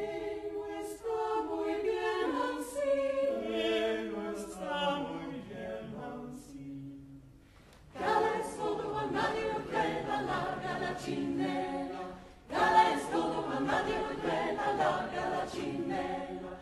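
Mixed chamber choir singing a cappella in Spanish. Sustained chords die away to near silence about seven seconds in, then a louder, quick, rhythmic passage enters a second later, broken once by a short pause.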